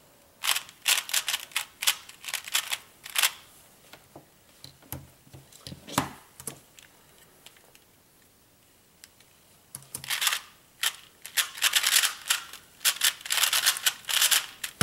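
A plastic 2x2 speedcube turned by hand, its layers clicking and clacking: short bursts of turns during the scramble in the first few seconds, a few scattered turns, a quiet pause, then about five seconds of fast, dense clacking as the cube is solved.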